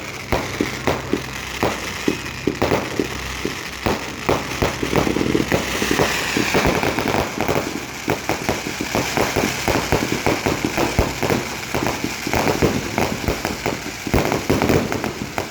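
Fireworks going off: a dense, continuous run of sharp pops and bangs, with a hiss swelling about six seconds in.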